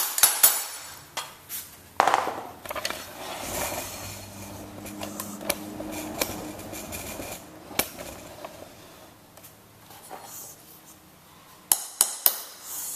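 Hammer tapping a steel flooring pull bar hooked over the end of a vinyl plank, sharp metallic clinks that knock the click-lock joint shut to close a gap in the seam. A few single taps come first, with the loudest about two seconds in, then a quick run of four light taps near the end.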